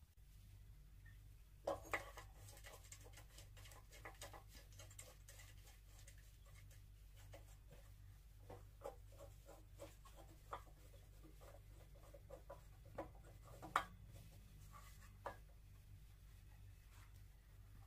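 Faint handling noise of a steel plate being held and shifted against a drill press's metal casing: light taps, clicks and scrapes, with a couple of sharper knocks about two seconds in and near the end, over a faint low hum.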